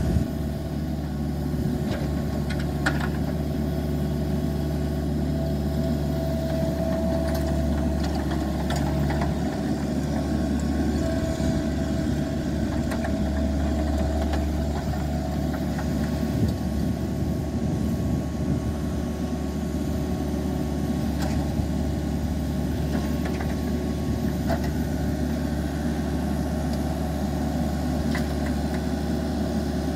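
Jacobsen R-311T commercial rotary mower's diesel engine running steadily as the machine drives around. A faint higher whine comes and goes a few times.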